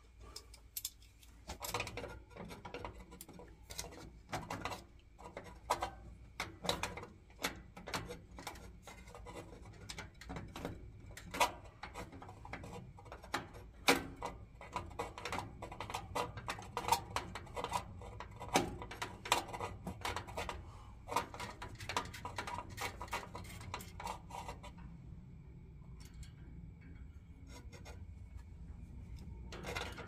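Hand tools and metal fittings clicking and clinking irregularly as a boiler's faulty thermocouple is being removed from the gas valve. The clicks stop about 25 seconds in, leaving a low steady background.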